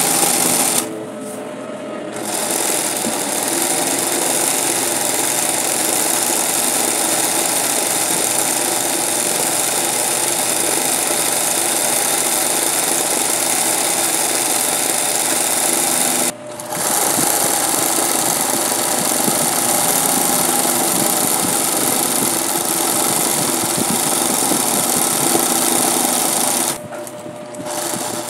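Singer 20U industrial zig-zag sewing machine running steadily as it stitches freehand embroidery. It stops three times: for about a second near the start, very briefly around the middle, and for about a second and a half near the end.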